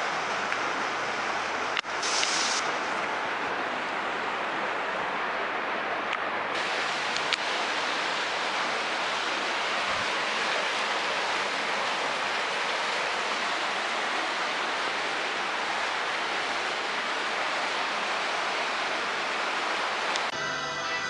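Steady rush of splashing water, with a single sharp knock about two seconds in.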